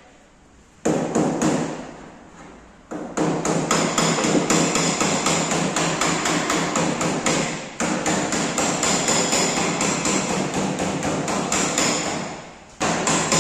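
Rapid, repeated hammer-like blows on metal at a Suzuki Alto 800's rear wheel hub while the brake drum is being worked loose. A few single knocks come first, then long runs of quick strikes with two short breaks.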